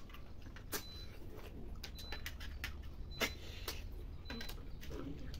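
Irregular sharp clicks and taps of small snail shells being picked up from a steel plate and handled while eating, about eight in five seconds.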